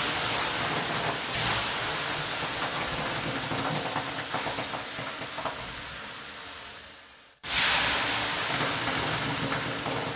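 Water thrown onto the hot stones of a wood-fired sauna stove: a sudden loud hiss of steam that fades away over several seconds with small crackling sizzles. After about seven and a half seconds a second ladleful sets off another sudden hiss that again fades.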